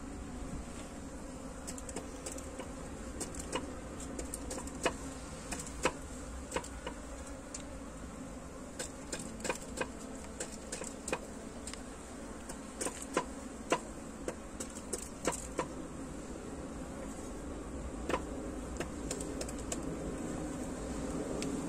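Steady buzzing hum of a honeybee colony in a mud-wall hive cavity, with scattered sharp clicks and knocks as a hand works the frames and stones inside the opening.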